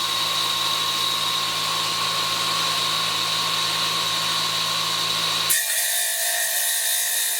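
Tile saw running steadily and cutting a ceramic subway tile along a marked line, a steady high whine. About five and a half seconds in the low hum drops out abruptly, leaving the higher whine.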